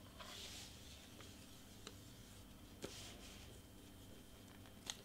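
Near silence with faint rustling and a few light clicks as ribbon is handled and pulled around a paper-wrapped gift box.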